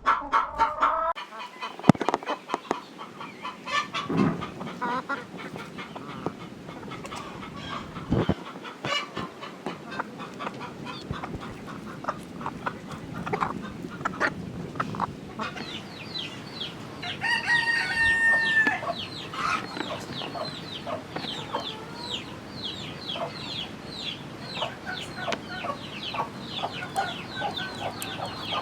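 Flock of chickens clucking, with a rooster crowing once about two-thirds of the way through. There is a sharp knock about two seconds in.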